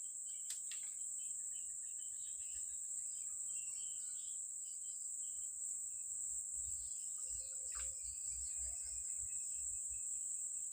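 Steady high-pitched drone of insects, with two sharp clicks, one just after the start and one about eight seconds in.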